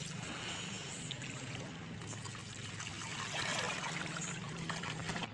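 Seawater splashing and trickling as a dog paddles and wades through shallow water, with small irregular splashy clicks over a low steady hum.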